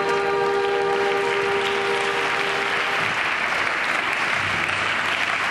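Spectators applauding, the clapping swelling in from about a second and a half in and holding steady. Under it, the program music's last held chord rings on and stops about three seconds in.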